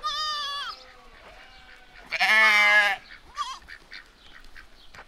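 Goats bleating: a short high call at the start, then a loud, longer wavering bleat about two seconds in, and a brief fainter call after it.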